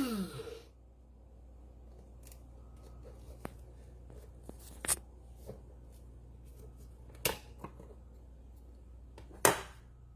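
Electric blade coffee grinder's motor spinning down after it is switched off, its hum falling in pitch and dying away within the first second. Then scattered light clicks and knocks of the grinder being handled, the loudest near the end.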